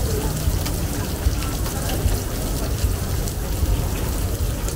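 Steady rain falling, with many fine raindrop taps close by, over a constant low rumble.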